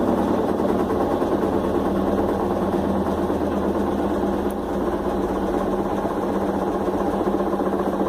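Electrolux LF11 top-load washing machine spinning its basket: a steady mechanical running noise from the motor and belt drive, with a steady hum. A low rumble underneath eases off about halfway through.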